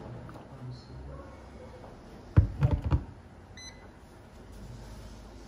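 An electric gooseneck kettle is set down on its base with a few heavy knocks, followed about a second later by a short beep.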